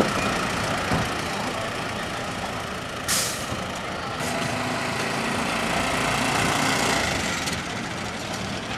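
Street traffic: a steady rumble of vehicle engines and road noise, with a short sharp hiss about three seconds in.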